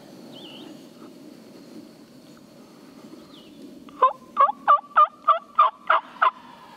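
A run of eight loud turkey yelps, evenly spaced at about three a second, starting about four seconds in.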